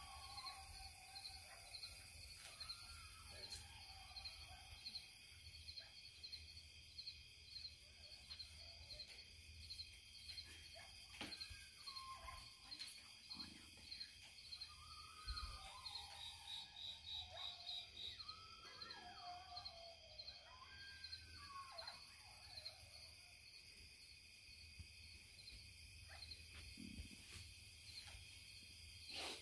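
Faint, distant coyotes howling and yipping in wavering, gliding calls, over a steady trilling chorus of night insects.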